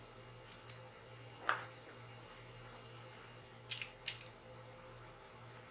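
Light clicks of wooden toggle clamp parts and hardware being handled during assembly: a few short, sharp clicks, two of them close together about four seconds in, over a low steady hum.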